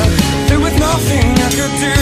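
Background music with a steady heavy drum beat and a melody line that bends up and down in pitch.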